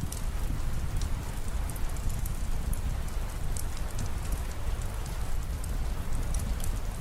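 Steady rain falling with a low rumble underneath, and scattered sharp ticks of drops striking a surface.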